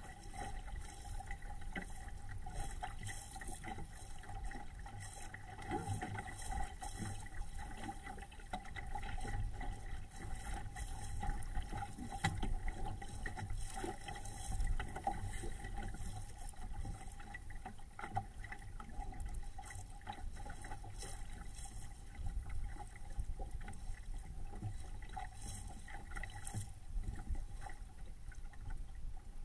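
Water rushing and slapping along the hull of a small home-built SCAMP sailboat under way, with wind buffeting the microphone as a low rumble. A faint steady hum runs underneath.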